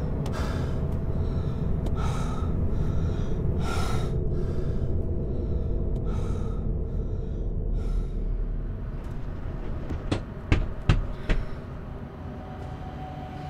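A woman gasping and breathing heavily, a short loud breath about every second, over a low steady rumble. About ten seconds in, the breathing gives way to a quick run of four sharp knocks.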